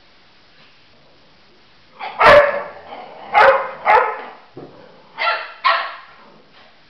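Labrador barking during rough play between the dogs: five short, loud barks over about three and a half seconds, mostly in pairs.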